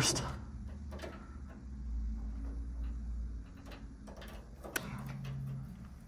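Handling sounds from a washer's metal suspension rod being slid up through its hole in the cabinet frame: a few light clicks and knocks over a low rumble of rubbing and handling.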